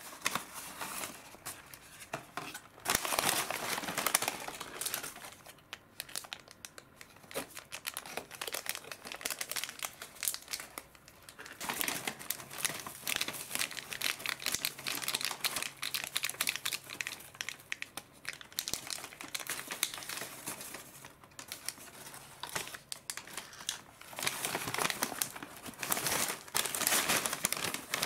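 Paper and foil packaging crinkling and rustling under handling: a foil seasoning packet is torn open over fries, and near the end the paper fries bag is shaken and crumpled to mix in the Shaka Shaka Potato seasoning.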